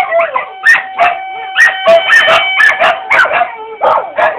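Huskies howling and yipping in a quick run of short calls that bend in pitch, over the steady held tone of a tornado siren.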